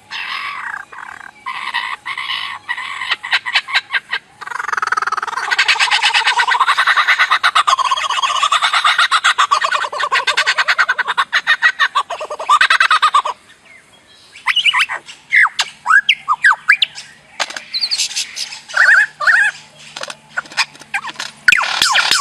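Two birds with different voices calling. First comes harsh squawking, rapidly pulsed, running on unbroken for several seconds in the middle. After a short gap about halfway through come short whistled notes that slide up and down.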